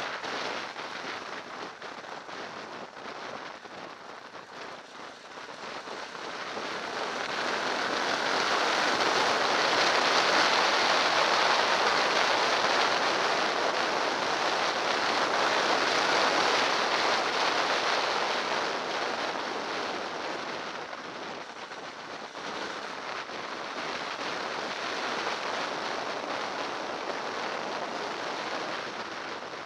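Dirt bike ridden over a gravel track, heard through a bike-mounted camera as a rushing noise of wind on the microphone and tyres on gravel, with no clear engine note. It swells to its loudest in the middle and eases off towards the end.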